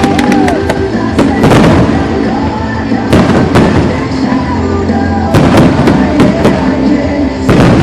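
Fireworks bursting and crackling in rapid volleys over loud show music, with a few whistling glides among the bangs.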